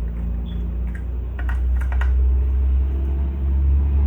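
A few light clicks and taps from small screws and metal parts being handled, over a steady low hum.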